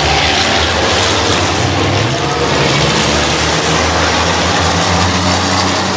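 Race trucks' turbodiesel engines running hard as a close pack passes on the circuit: a steady low engine drone under a broad rush of noise.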